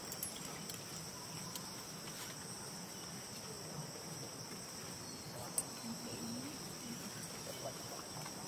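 Steady high-pitched drone of insects, with a few faint ticks and one short sharp click about five and a half seconds in.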